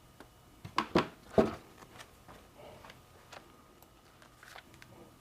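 Three light clicks or knocks in the first second and a half, then a few faint small taps: handling of small tools and a plastic panel.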